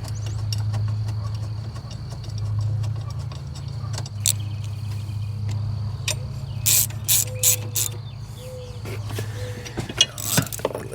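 Socket ratchet wrench clicking in short runs, turning a 10mm bolt on an engine's coil and intake area, over a steady low hum.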